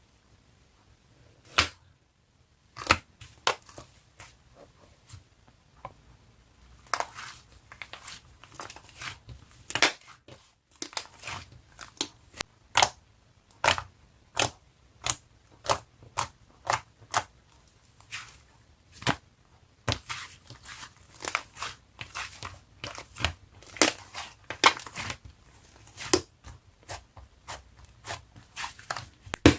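Slime being pressed, stretched and squeezed by hand, giving a string of sharp, irregular pops and crackles, sparse at first and coming a couple a second from about seven seconds in.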